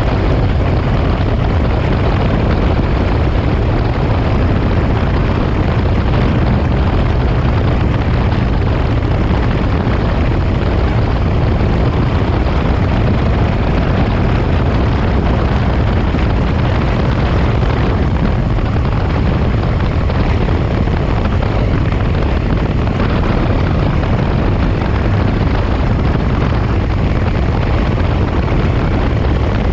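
1967 Triumph Daytona T100R's 500cc parallel-twin engine running steadily under way at road speed, with wind rushing over the microphone.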